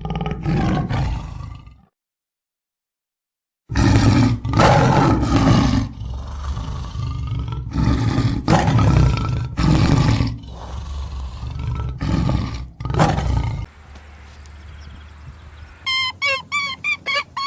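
A big cat roaring: a run of loud, repeated roars and grunts, each about a second long. Near the end, a chicken starts clucking in quick short calls.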